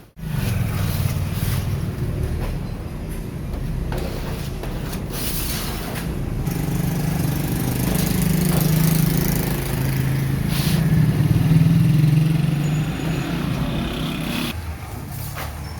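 Workshop machine running with a steady low motor hum, with a few sharp clicks over it; the hum drops away about a second before the end.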